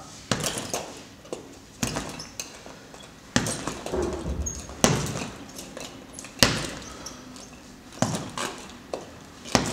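Jabs landing on a leather heavy punching bag, about seven sharp thuds roughly one every second and a half, with lighter knocks in between.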